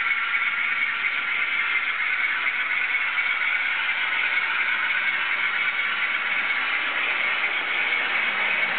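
Model trains running on the layout tracks: a steady, unchanging mechanical noise.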